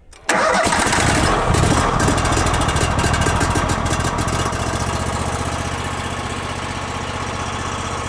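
Timber King 2000 sawmill's 999 cc petrol engine starting cold on choke: it fires a fraction of a second in and runs evenly with a steady pulse, gradually getting a little quieter as it settles.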